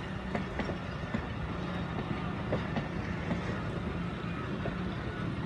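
Passenger coaches of an express train rolling past, their wheels clacking irregularly over the rail joints over a steady low hum.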